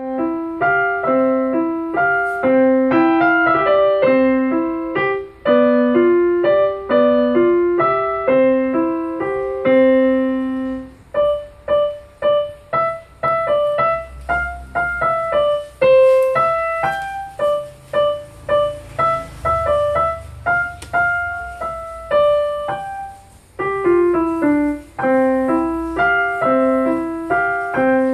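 Piano playing a simple melody note by note: a repeated lower figure, a lighter, higher passage through the middle, then the opening figure returns near the end.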